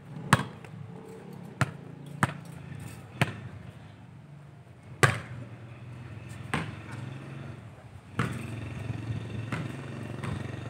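Sharp thuds of a football being kicked and bouncing, about nine at irregular intervals of a second or two, over a low steady hum that grows louder near the end.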